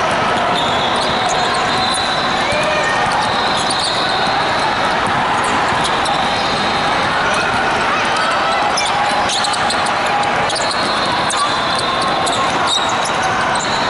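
Busy basketball-hall din: many overlapping voices, sneakers squeaking on the hardwood courts, and a basketball bouncing, with a few sharp bounces in the second half.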